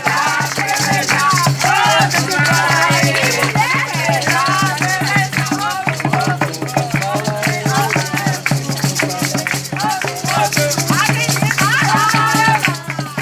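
Carimbó played by a group: drums and maracas shaking in a fast, steady rhythm, with many voices over it.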